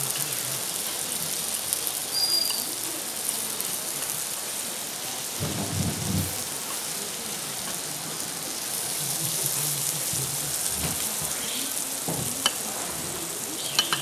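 Food in red sauce sizzling in a hot stone platter: a steady, rain-like hiss, with a couple of short clicks near the end.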